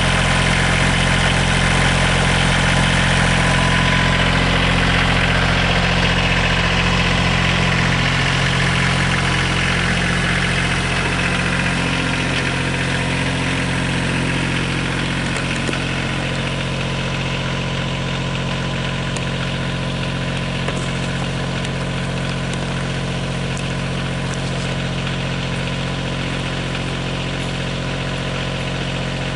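Kioti CK2610 compact tractor's three-cylinder diesel engine idling steadily, fading a little over the first dozen seconds and then holding even.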